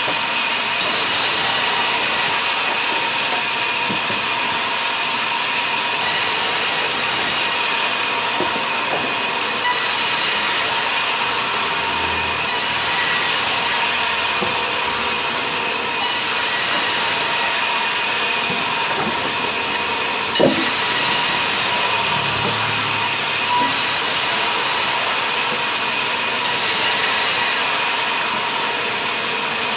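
Vertical band saw running and cutting through log slabs: a steady loud whine and hiss. A single sharp knock about twenty seconds in.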